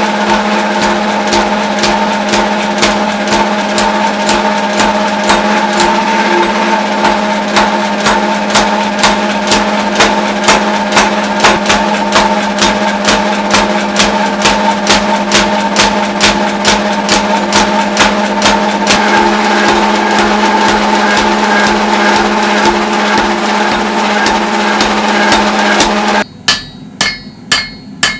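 Steady hammer blows on steel at about two to three a second, each a sharp metallic strike, over a constant humming drone. The drone cuts off suddenly near the end, and the blows then ring out clearly on their own.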